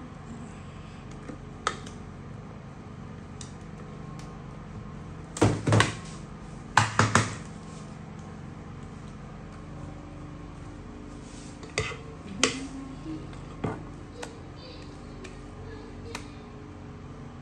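Cake batter being scraped out of a glass mixing bowl into a metal cake pan with a spatula: soft scraping broken by sharp knocks of the spatula and bowl against the rims. The loudest clusters of knocks come about five and seven seconds in, with single taps later on.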